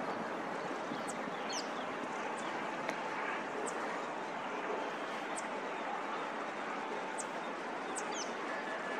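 Birds giving short, high chirps now and then, about eight in all, over a steady outdoor hiss.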